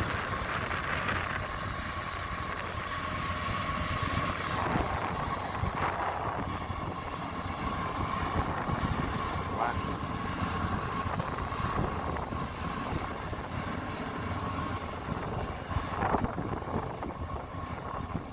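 Kubota DC-93 combine harvester running steadily, a low engine rumble with a steady whine from the machinery over it and a few light knocks.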